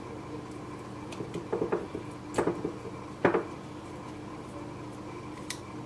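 Cardamom pods being cracked open by hand: a cluster of small crackles, then two sharper cracks about a second apart near the middle.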